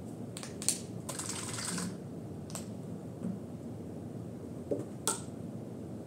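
Craft paint supplies handled on a table: a few light clicks and taps from a plastic acrylic paint bottle and paintbrush, and a brief scratchy rustle about a second in, over a steady low hum.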